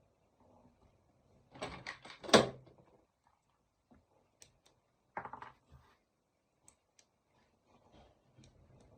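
Handling noises: a quick run of knocks and clicks about two seconds in, the loudest among them a sharp knock, then a shorter clatter about five seconds in, with faint ticks between.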